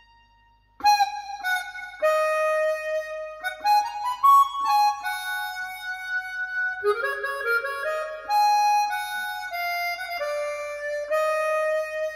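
Instrumental music track played through an Icon Audio MFV 3 Super floorstanding speaker. A held note fades out, and after a short pause a melody of single sustained notes begins and carries on.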